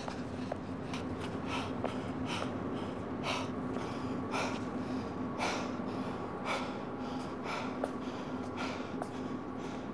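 A man's heavy breathing, roughly one breath a second, over a steady low hum.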